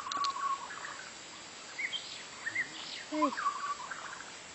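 White-rumped shama (murai batu) singing: several short bursts of whistled notes that rise and fall, some held briefly, with pauses between phrases.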